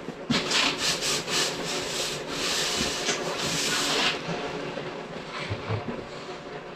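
Hand rubbing strokes on the fiberglass repair of a car hood: quick repeated scrubbing strokes, about three a second, that run together into continuous scrubbing and stop about four seconds in, fainter strokes after.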